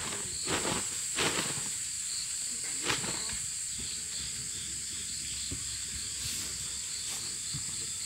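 Steady high-pitched insect chorus, with a few short rustles and knocks in the first three seconds.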